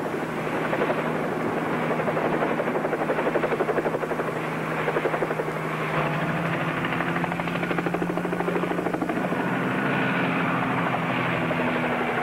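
Bell 47 helicopter in flight, its piston engine and rotor running steadily with a fast, even throbbing chop.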